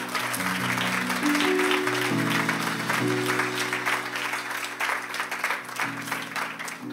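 Congregation applauding over a stage keyboard holding sustained chords that change every second or so.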